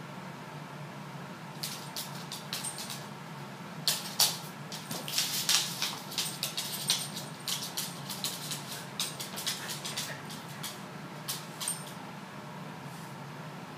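Boston Terrier's and Ragdoll cat's paws and claws scrabbling and clicking on a wood floor as they wrestle, with a few soft thumps of bodies. A flurry of quick clicks and scuffs, busiest a few seconds in, thinning out near the end.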